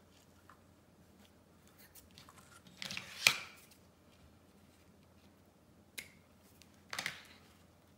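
Small handling noises of hands working a fabric bow and a hot glue gun on a cutting mat: a sharp click or tap about three seconds in, the loudest, and two shorter ones near six and seven seconds.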